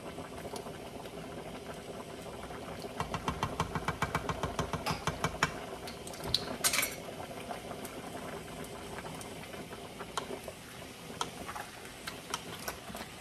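Beef stew simmering in a wide pan with a steady bubbling hiss. A spoon taps and clicks rapidly against the pan from about three to five seconds in, with a few sharper taps soon after as tomato paste is knocked off it. Near the end a wooden spatula scrapes and knocks against the pan as the stew is stirred.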